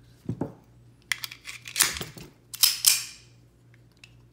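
Metallic clicks and clacks of a Walther PPK/S .22 LR pistol being handled as a magazine holding an empty casing goes in and the slide is worked. There is a small click about a third of a second in, then a run of sharper clacks, loudest between about two and three seconds in.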